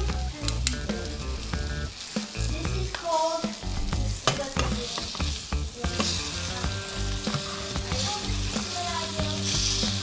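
Breaded largemouth bass fillets sizzling as they pan-fry in oil in a skillet, with metal tongs clicking and scraping against the pan as the fillets are turned.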